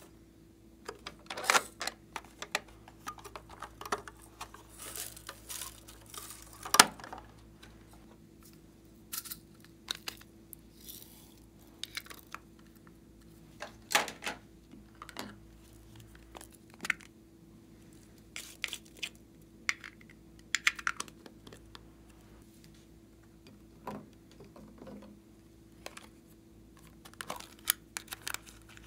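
Hard plastic toy containers clicking, snapping and tapping as they are handled and opened, with short rattling, hissing pours of glitter, sequins and tiny foam beads shaken out into the trays.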